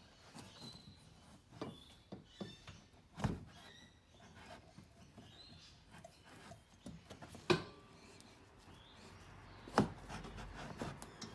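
Handling noise of a rubber air spring being pushed and twisted into place in a car's rear suspension: scattered knocks, clicks and scuffs, the loudest about three, seven and a half and ten seconds in.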